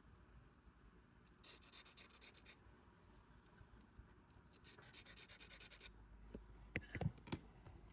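Faint scraping of a metal pick digging packed grease and dirt out along the edge of a Craftsman quarter-drive ratchet. It comes in two short spells, and a few light clicks follow near the end.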